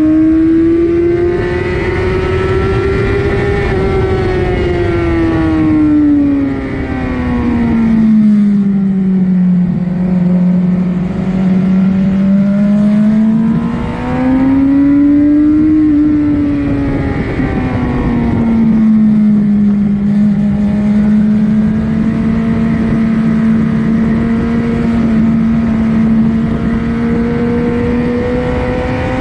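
2007 Suzuki GSX-R750's inline-four engine heard onboard at speed on a racetrack. Its pitch climbs and falls twice in the first half, then holds steady for the latter half before rising again at the very end, over a constant rush of wind noise.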